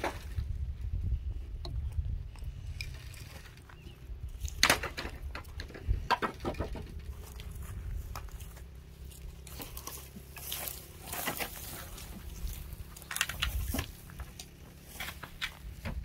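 Dry dead wooden poles and branches being pulled, knocked together and scraped through dry brush, with scattered sharp cracks and crackles of dry wood and twigs.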